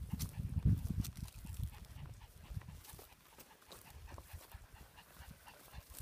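A dog panting, with light crackling steps through dry grass. A low rumble runs over the first two or three seconds.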